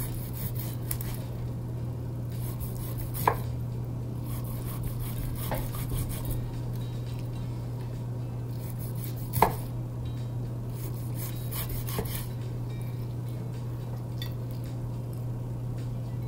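Large kitchen knife scoring a whole pompano on a wooden cutting board: soft scraping strokes through the skin, with a few sharp knocks of the blade on the board, the loudest about three seconds in and again about nine seconds in. A steady low hum runs underneath.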